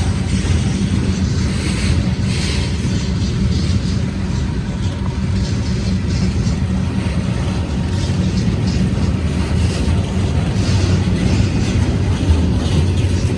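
Freight train rolling past, a loud steady rumble with faint irregular clicking from the wheels and cars.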